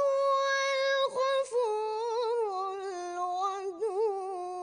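A boy's voice reciting the Quran in melodic, chanted style, holding long ornamented notes. The voice breaks off briefly twice about a second in, then continues on a lower, wavering note.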